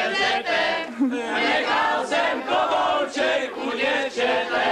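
A group of men and women singing a folk song together.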